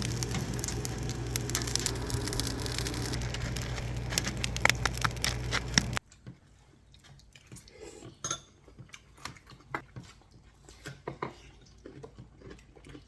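A steady hiss with a low hum and scattered clicks that cuts off abruptly about six seconds in, followed by faint light taps and clinks of utensils against dishes.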